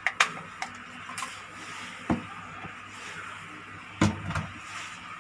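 Sharp plastic clicks and knocks from handling a toy drone's hard-plastic remote controller, a few scattered in the first two seconds and a louder knock about four seconds in as it is set down on the table.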